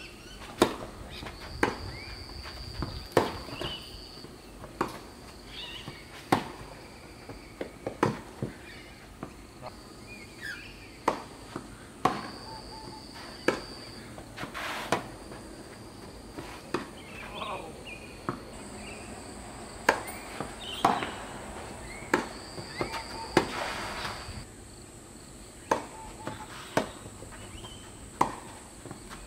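Tennis ball struck by racquets during a serve and rallies: sharp pops about a second or two apart, the first a moment in. A steady high-pitched insect drone comes and goes behind them.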